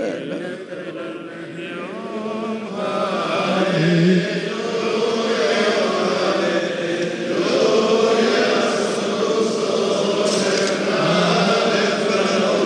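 Male voices chanting a Syriac Orthodox funeral hymn in long held notes, growing fuller and louder about three seconds in.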